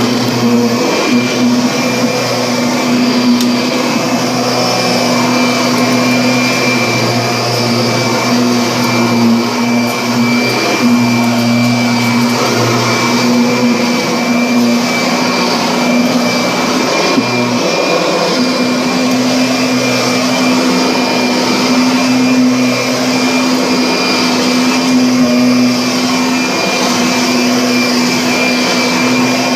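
Vacuum cleaner running steadily: a constant motor hum with a high, steady whine over the rush of air, the motor's tone wavering briefly a few times.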